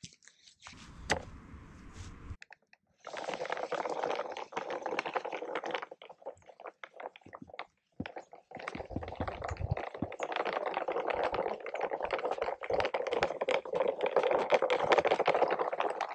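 Plastic toy wagon rattling as it is pulled over a lawn. The rattle comes in two long stretches with a short pause between them.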